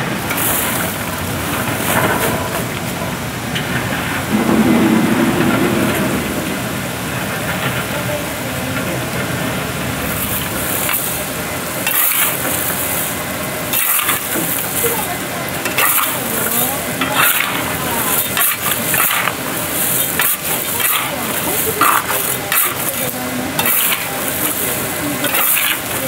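Chestnuts and hot river sand churning in a large iron roasting pan around a central stirring shaft: a steady gritty hiss of sand with scraping and clacking of shells, which turns busier and more rattling from about ten seconds in.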